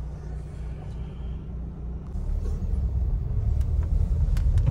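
Low rumble of a car on the road, growing louder about two seconds in, with a few light clicks near the end.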